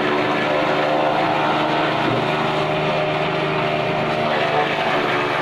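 JF-30 Evo chaff cutter, driven by an electric motor, running steadily while chopping green fodder stalks and blowing the chopped fodder out of its spout.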